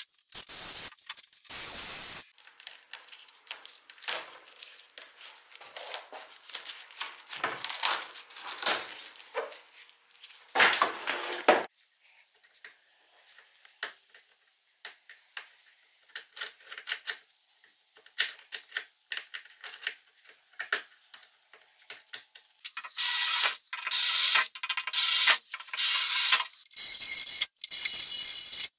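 Cordless drill running in short bursts, its bit working on the fasteners of a metal door-top frame. The loudest run of bursts comes near the end.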